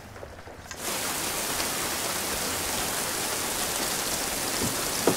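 Heavy rain that starts abruptly about a second in and falls steadily, with one sharp knock just before the end.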